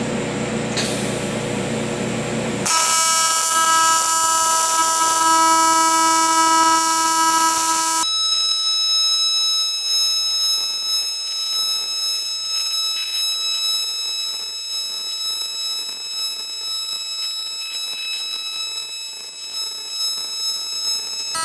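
AC TIG welding arc on aluminum buzzing steadily. Its pitch changes abruptly about three seconds in and again about eight seconds in.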